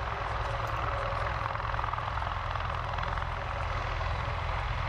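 Bell Boeing MV-22B Osprey tiltrotor running, a steady low rotor beat under a rushing engine noise.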